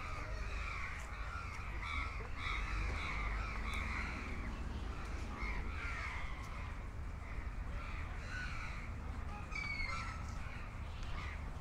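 Birds calling over and over, short rough calls, over a low steady rumble.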